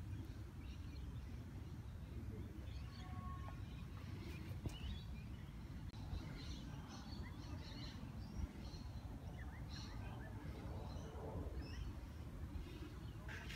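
Small birds chirping faintly here and there over a steady low outdoor rumble, with a few soft knocks.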